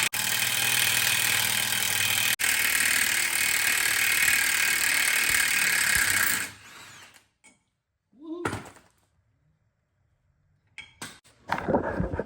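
Impact wrench running steadily on a seized front axle nut for about six and a half seconds, then stopping. A brief knock follows about two seconds later.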